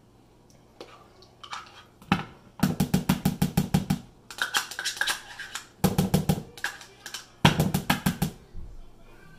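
Three quick runs of rapid tapping, about eight taps a second, as a utensil and a plastic measuring cup are knocked against a plastic mixing bowl to shake out sour cream. Lighter scrapes and knocks come between the runs.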